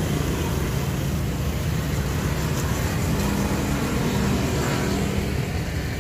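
Small motorbikes and scooters passing one after another in street traffic, their engines running in a steady mix of engine hum and road noise.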